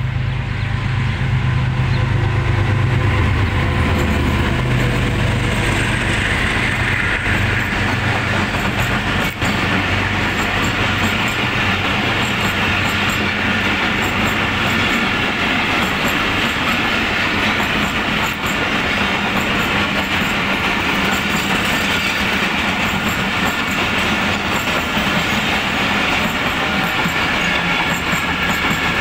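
Diesel-hauled express passenger train running through a station at speed. The locomotive's low engine drone passes in the first few seconds, then a long train of passenger coaches goes by with steady wheel-on-rail rumble and rhythmic clickety-clack over the rail joints.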